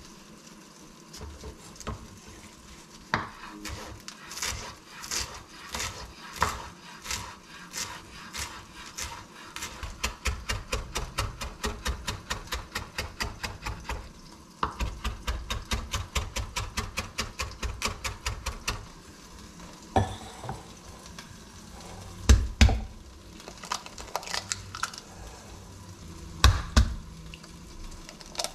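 Chef's knife chopping fresh parsley on a bamboo cutting board: the blade knocks on the wood in regular strokes, slow at first, then quick at about three a second through the middle. Near the end come a few separate, louder knocks and clatters.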